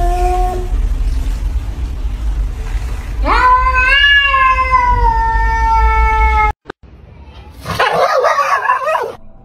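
Tabby cat meowing: the tail of one call, then a long meow of about three seconds that slowly falls in pitch. Near the end, a rough, noisy burst of about a second from a pair of dogs.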